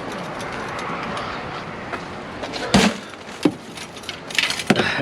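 Knocks and clatter of scrap metal pieces being handled in a dumpster: one loud knock a little before the middle, a lighter one shortly after, then a quick run of clinks and knocks near the end.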